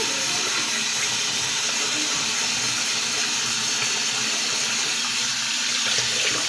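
Bathroom faucet running steadily into a sink, the stream splashing over hands and a makeup brush being rinsed under it.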